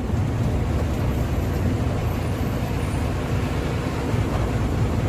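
Intercity bus running on the road: a steady low engine drone with road noise.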